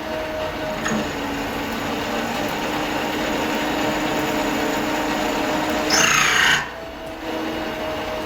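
Bernardo Profi 550 WQV mini metal lathe running with a steady motor hum while turning steel. About six seconds in, a louder, harsher burst lasts about half a second, and the sound drops briefly before the steady running resumes.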